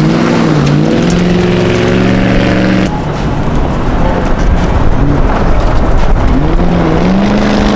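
Rally car's engine revving hard, rising and falling in pitch over and over as it is driven through the course, over a steady rush of road and tyre noise.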